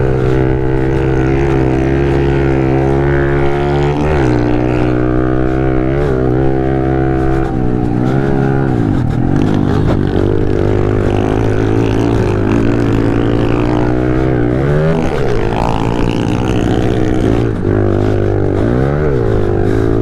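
Pit bike engine running hard under racing throttle, its revs dropping and climbing again about four times as the throttle comes off and back on through the turns.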